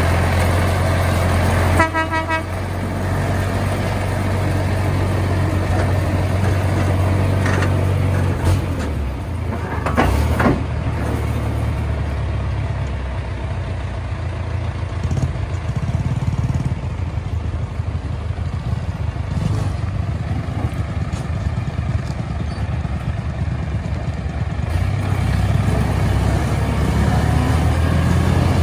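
David Brown 995 tractor's three-cylinder diesel engine running steadily as it hauls a trailer heavily loaded with firewood, louder at first and again near the end. A brief horn toot sounds about two seconds in, and a couple of knocks come around ten seconds in.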